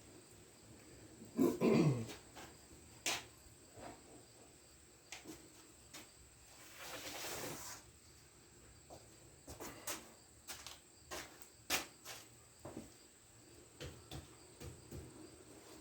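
Scattered small clicks and knocks of hands handling tools or parts, with a brief louder sound falling in pitch about one and a half seconds in and a soft rushing hiss around seven seconds in.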